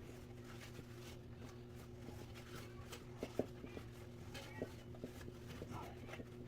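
Faint rustling and small clicks from a damp paper towel being wiped along metal box-fan blades, the sharpest tick about three and a half seconds in, over a steady low hum.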